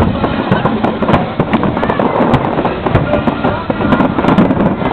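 Fireworks going off: aerial shells bursting into crackling stars, a dense run of sharp cracks one after another.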